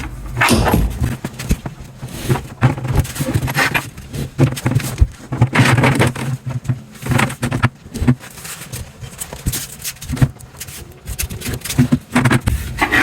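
A dishwasher being pushed and shifted into its cabinet opening: irregular knocks, bumps and scrapes of the metal unit against the cabinets and floor.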